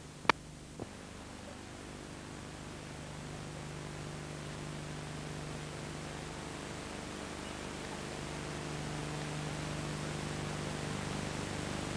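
Steady hiss with a low hum from the camcorder's recording, slowly growing louder, with a sharp click about a quarter of a second in and a fainter one just after.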